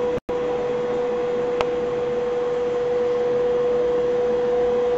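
Steady electrical hum at one mid pitch over an even hiss. The sound cuts out for an instant just after the start, and a single click comes about a second and a half in.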